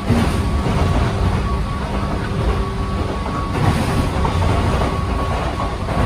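Running noise inside a Toyama Chiho Railway 14760-series electric railcar at speed: a steady rumble of the wheels on the rails with a thin steady whine and a few light knocks from the track.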